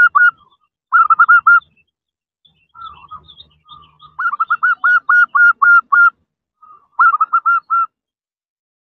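Female zebra dove (perkutut) giving rapid staccato call notes, about five or six a second, in several short series with brief pauses and a few softer notes between them: a female calling to a male.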